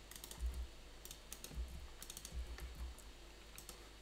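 Typing on a computer keyboard: scattered key clicks, with a few dull low thumps among them.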